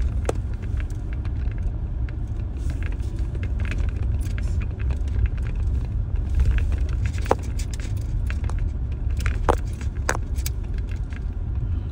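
Car driving over a rough sandy track, heard from inside the cabin: a steady low rumble with frequent small rattles and clicks, and a few sharper knocks in the second half.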